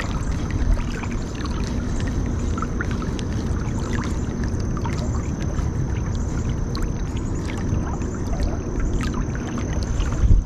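Steady rushing of flowing creek water, heaviest in the low end, with faint scattered ticks and a thin high steady tone over it.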